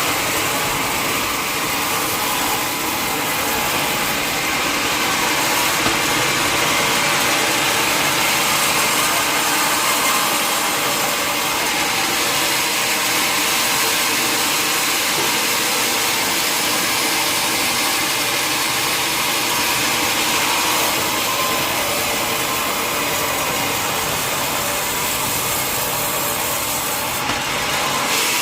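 Sawmill saw running and cutting through wood: a loud, steady noise that goes on without a break, with a faint constant hum beneath it.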